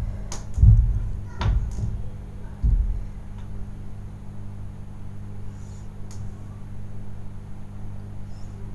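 Spatula stirring and tossing pasta in a nonstick frying pan: soft scraping with a few sharp clicks and knocks against the pan, mostly in the first three seconds and once more about six seconds in, over a steady low hum.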